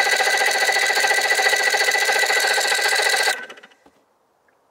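Electric starter cranking an 85-horsepower outboard motor with a steady rapid churn, without the engine catching, and stopping abruptly a little over three seconds in.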